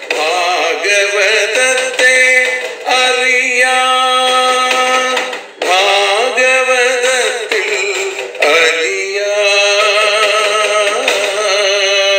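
A voice singing a slow devotional song, long held notes with wavering, ornamented turns in pitch, over a steady drone that drops out about halfway through.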